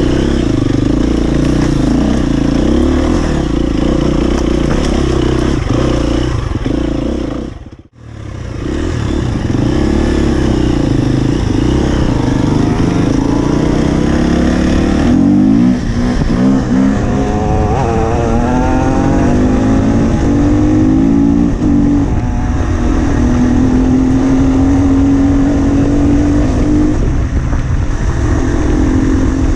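A 2017 Husqvarna FE 250 four-stroke single-cylinder enduro motorcycle being ridden, its engine revving up and down repeatedly as the throttle opens and closes through the gears. The sound cuts out for a moment about eight seconds in.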